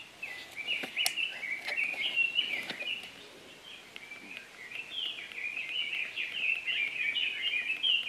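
A small songbird singing a long, unbroken, twittering song of quick chirping notes that jump up and down in pitch. A few light clicks sound in the first few seconds.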